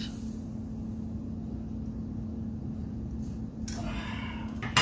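A steady low machine hum, like a running fan motor, fills the room. About three and a half seconds in there is a brief scraping rustle, and a sharp knock comes right at the end.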